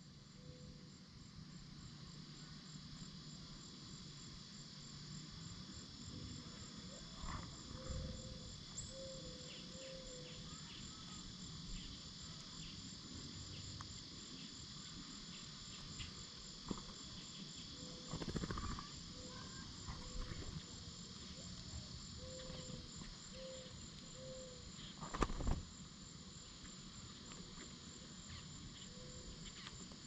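Steady outdoor insect chorus: a high, finely pulsing trill over a hiss, with runs of short low notes repeated every half second or so. A few dull thumps break in, the loudest about 25 seconds in.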